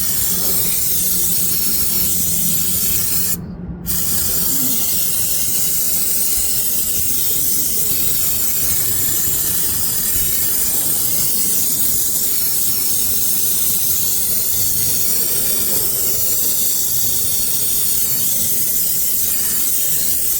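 Aerosol can of brake cleaner spraying in a long, steady hiss, broken once by a short pause about three and a half seconds in.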